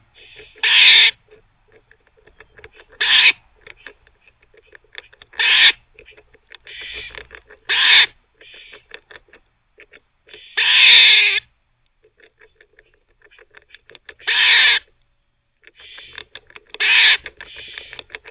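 Gray squirrel barking: seven loud, short barks about every two to three seconds, the fifth one longer. Between barks come faint, quick clicks of the squirrel gnawing with its teeth.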